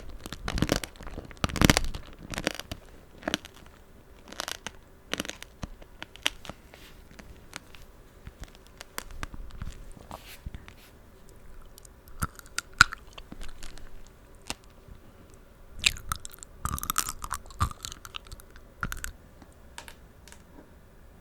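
Close-miked chewing of tanghulu, fruit coated in a hard sugar-candy shell, with the candy cracking and crunching between the teeth. The crunches come thick at first, thin out in the middle, and come thick again about three quarters of the way through.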